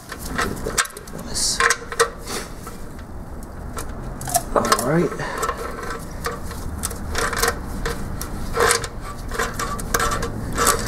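Metal wrench clinking and scraping against the 13 mm motor mounting bolts as they are worked loose, in irregular sharp clicks.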